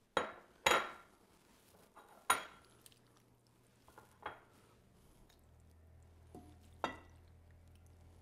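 Wooden spoon clinking against a glass mixing bowl and ceramic ramekins while pasta is spooned out: about five sharp clinks, the loudest in the first few seconds and fainter ones after. A faint low hum comes in partway through.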